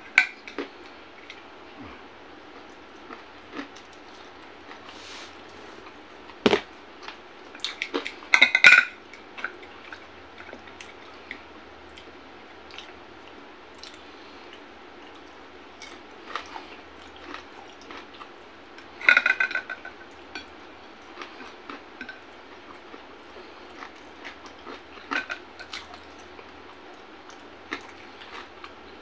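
Close-up eating sounds of a man eating fried pork and rice by hand: quiet chewing and wet mouth sounds over a faint hiss, with short clusters of louder clicks and smacks now and then, the loudest about a third of the way in and again about two-thirds in.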